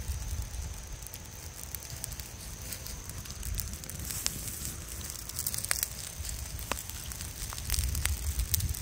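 Open fire of wood and dried herbs burning, with scattered sharp crackles and pops over a steady low rumble.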